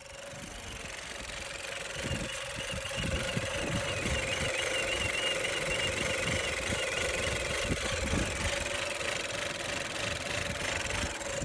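2017 Chevy Cruze's 1.4-litre turbo four-cylinder engine running with a steady whistle over it, a fault the owner cannot yet trace. A second, higher wavering whistle joins about two seconds in and fades out a few seconds later.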